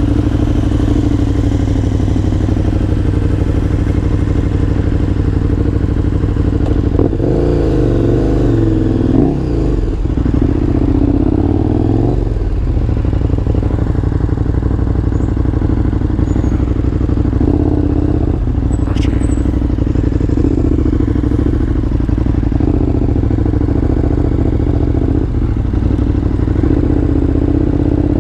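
KTM motorcycle engine running, first steady and then rising and falling in pitch as the bike pulls away about seven seconds in, then running on steadily while riding.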